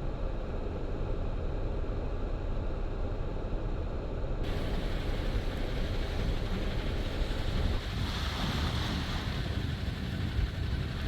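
Jeep driving on an unplowed dirt road, a steady low rumble heard from inside the cabin. About four seconds in it cuts abruptly to outdoor wind noise on the microphone, a rushing hiss over a low rumble.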